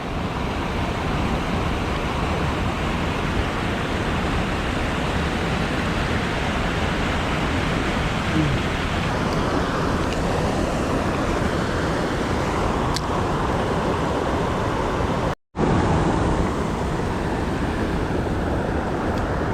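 Steady rush of flowing creek water, with a brief total dropout about fifteen seconds in.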